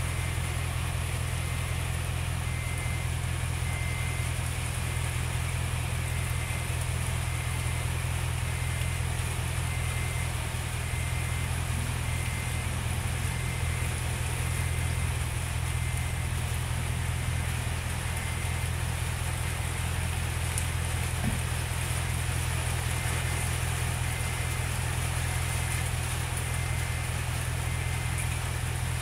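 Car engine idling, heard inside the cabin as a steady low hum. A faint high beep repeats evenly over it, pausing for a few seconds midway.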